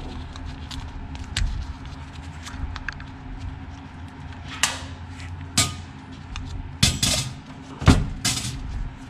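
Small screws being backed out of the choke thermostat cover plate on a Holley 2300 carburetor, with scattered sharp metal clicks and clinks of the screwdriver, screws and plate, the loudest in the second half. A low steady hum runs underneath.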